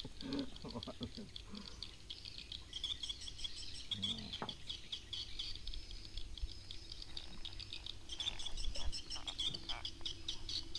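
Dense night chorus of quick, high, repeated chirps from insects, running on without pause. A faint steady low hum comes in about four seconds in, with a few knocks and low voices in the first second.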